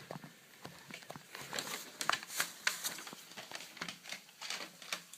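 Packaging crinkling and rustling as it is handled, with irregular quick crackles and small clicks, busiest in the middle.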